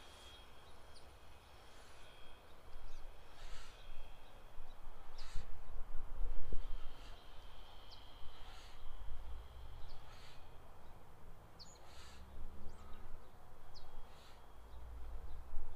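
Outdoor wind buffeting the microphone in uneven gusts, strongest a little past the middle, with birds calling now and then in the background.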